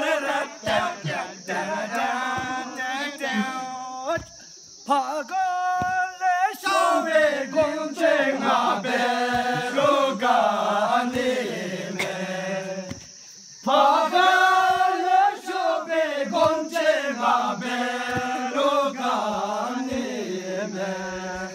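A group of men singing a song together, long held notes sliding between pitches, with two short breaks between phrases. A steady high-pitched drone runs behind the voices.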